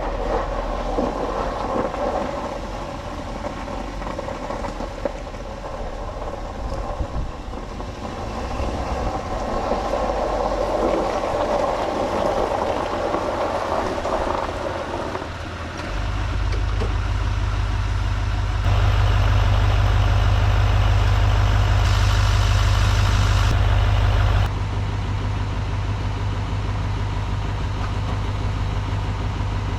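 A vehicle engine running steadily. A deep low hum comes in about halfway through, grows louder for several seconds, then drops back a little.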